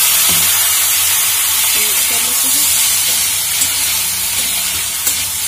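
Cauliflower florets sizzling and frying in hot mustard oil in a kadhai, stirred with a metal spatula, with a few light clicks of the spatula against the pan in the second half.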